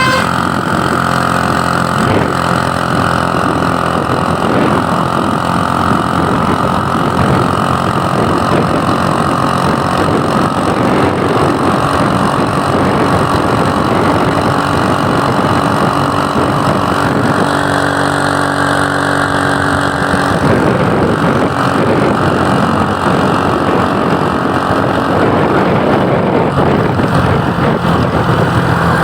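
Motor vehicle engine running steadily on the road, with continuous engine and road noise.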